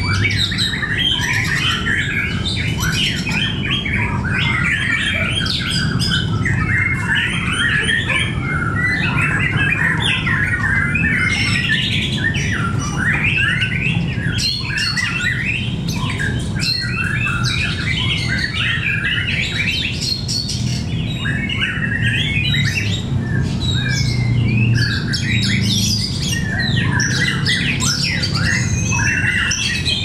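Many caged white-rumped shamas singing and calling at once: a dense, unbroken tangle of whistled and chattering phrases over a low steady hum.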